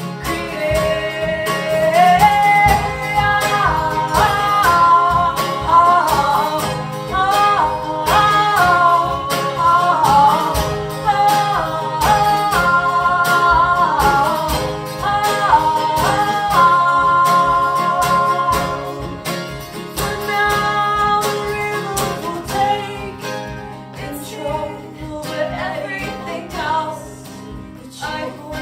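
Live band music: guitar accompaniment with a sung melody, getting quieter over the last few seconds.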